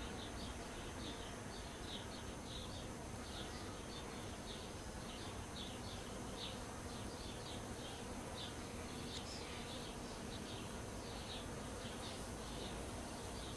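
Honeybees buzzing around their hive, a low steady hum, with many short high chirps scattered over it throughout.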